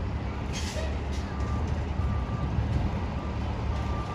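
Diesel engines of parked fire trucks idling in a steady low rumble, with a vehicle's backup alarm beeping on and off over it.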